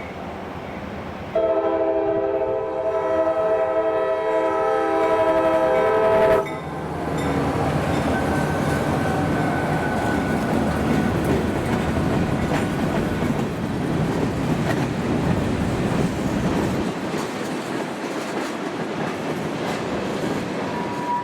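A train sounds a long, loud horn that cuts off suddenly about six seconds in. The train then passes with a steady rumble and wheel clatter on the rails.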